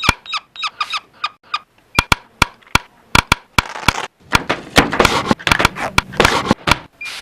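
An irregular series of sharp clicks and knocks, many with a brief ringing tone, coming faster from about four seconds in.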